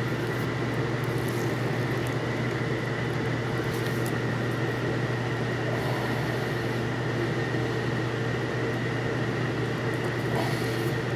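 A steady machine hum with a constant low drone and a faint high tone, unchanging throughout.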